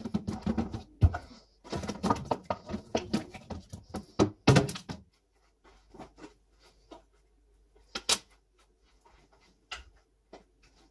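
Containers and jars being handled and set down while a refrigerator is sorted. Dense rustling and clattering knocks with a few sharp loud knocks, then sparser single clicks and taps, one sharp tap near the end.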